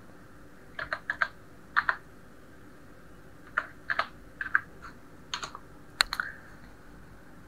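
Computer keyboard typing, short key clicks in small irregular groups as a folder name is typed in, with a sharper single click about six seconds in.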